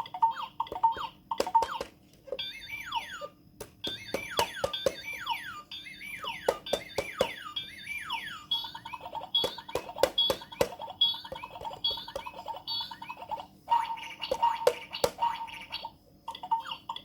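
Electronic sound effects from an Early Learning Centre light-and-sound baby toy: a run of quick falling chirps, then rapid beeping at one pitch, broken by sharp clicks.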